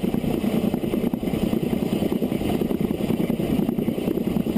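Narrow-gauge steam locomotive No. 4 Loch running along the track on light power downhill: a steady rumble with a rapid, irregular rattle of wheels, rails and motion.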